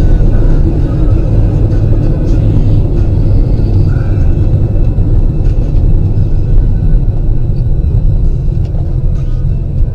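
Steady, loud low rumble of a car driving on the road, picked up by a dash camera.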